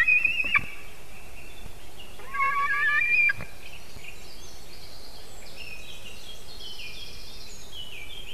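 Juvenile white-tailed eagle calling: a short high whining call right at the start, then a longer, wavering call about two seconds in.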